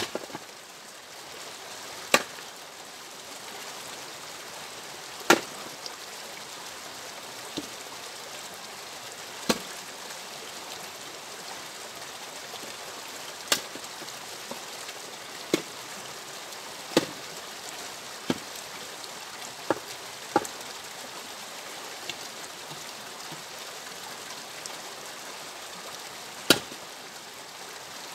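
Axe splitting firewood logs on a chopping block: about a dozen sharp cracks of the blade biting and the wood splitting, irregularly spaced a second to a few seconds apart. A steady rushing noise runs underneath.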